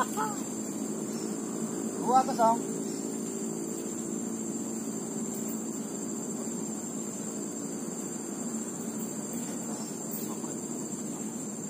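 Steady high-pitched drone of crickets or similar insects, with a lower steady hum beneath it. Two brief warbling calls break in, at the very start and about two seconds in.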